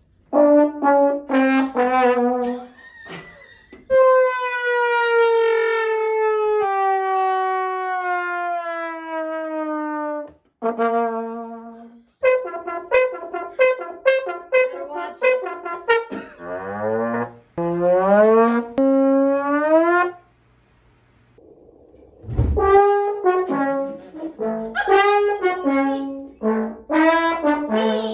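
Trombone playing comic sound effects: a few short blasts, then a long slow slide downward in pitch, a run of quick short notes, and notes climbing upward. After a brief pause, more short blasts.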